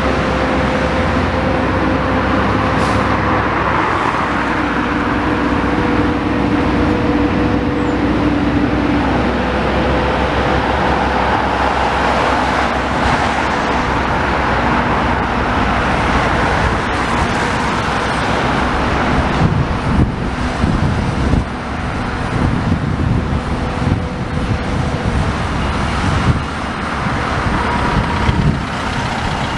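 A long-reach demolition excavator runs with a steady engine hum over passing road traffic. In the last third, a run of knocks and crashes comes as it pulls at the masonry.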